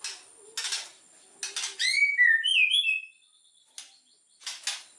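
White-rumped shama singing: a loud run of clear whistled notes sliding up and down, set among harsh scratchy notes, with a short pause near the middle.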